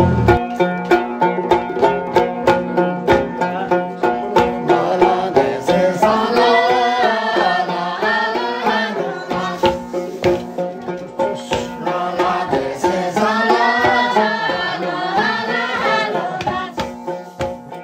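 Background music: plucked strings over a steady drum beat, with a wavering lead melody coming in twice, fading out near the end.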